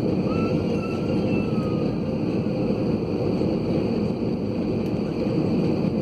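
Airliner cabin noise: the jet engines and airflow heard from inside the cabin as a steady, even rumble, with a faint high whine briefly about a second in.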